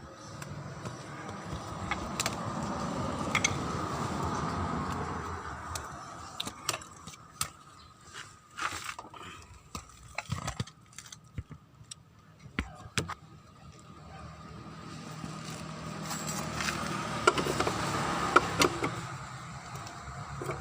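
Workshop disassembly noises from a scooter's gear case: scattered sharp metal clinks and knocks of tools and parts, with a longer noise swelling up and dying away near the start and again near the end.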